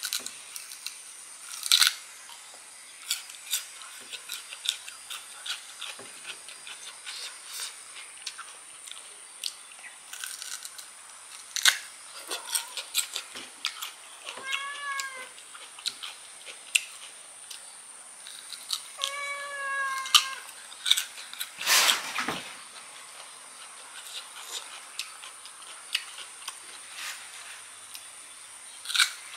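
Close-up crunching and wet chewing of raw, crisp kedondong (ambarella) fruit: many sharp crackles and clicks as the flesh is bitten and chewed. Twice in the middle a short, high, wavering cry is heard.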